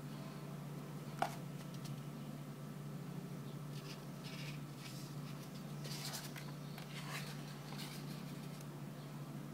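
Paper leaflets and card packaging from a phone box being handled: light rustling and scraping, with a single sharp click about a second in. A steady low hum sits underneath.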